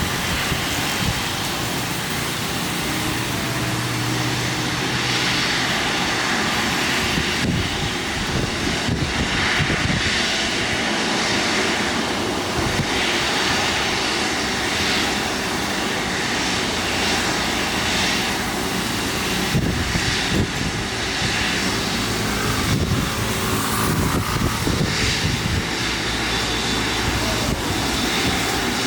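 Boeing 777 jet engines running at high power for a takeoff, a loud steady noise that swells and eases slowly.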